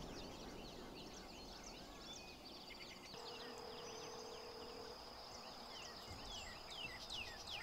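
Faint dawn ambience of many birds chirping in short falling notes, with a steady high insect trill that becomes clear about three seconds in. A faint low steady hum sounds for about two seconds in the middle.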